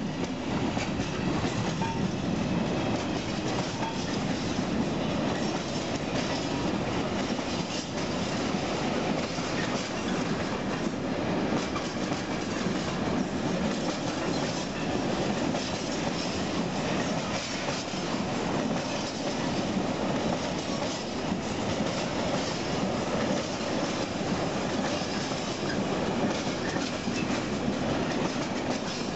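Freight wagons (covered wagons and grain hoppers) rolling past at a level crossing: a steady rumble of steel wheels on the rails, with clacking as the wheels pass over the rail joints.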